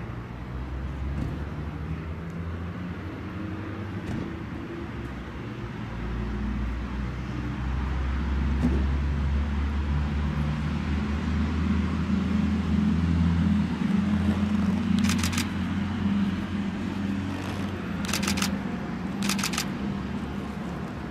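A car engine running, with steady outdoor traffic noise. Three brief bursts of rapid clicking come in the second half.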